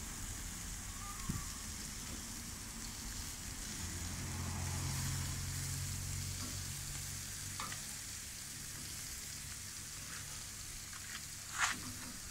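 Duck pieces sizzling on a charcoal grill grate: a steady hiss of fat frying, with a low hum swelling for a few seconds in the middle and a few sharp crackles near the end.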